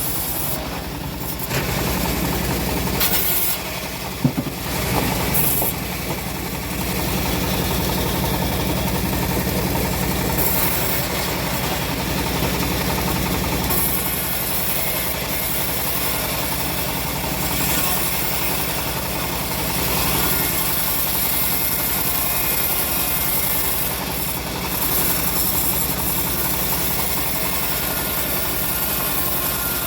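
Engine of a homemade portable bandsaw mill running steadily while it rips old teak logs, with a slight unevenness about three to five seconds in.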